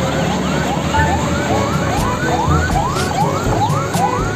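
Electronic siren sound: a quick rising whoop, repeated about three times a second.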